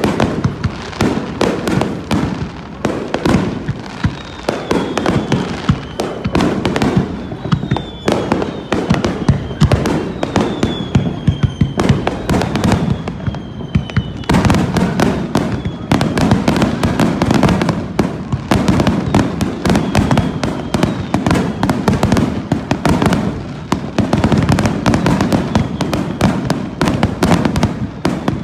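Aerial fireworks going off in a dense, continuous barrage, many sharp bursts overlapping one another. A few faint falling whistles come between about four and fourteen seconds in.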